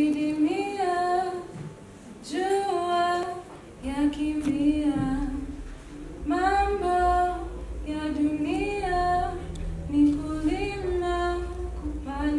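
A woman singing unaccompanied, a short phrase that rises and then holds, repeated about every two seconds. A low rumble comes in under the voice about four seconds in.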